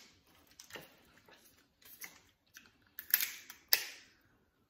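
Crab shells cracking and snapping as they are broken open and eaten close to the microphone: a handful of sharp cracks, the loudest two a little past three seconds in.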